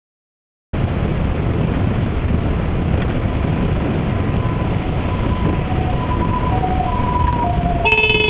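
Steady road and engine noise heard from inside a car through a dashcam, with faint tones that step up and down in pitch. About eight seconds in a car horn starts blaring and holds.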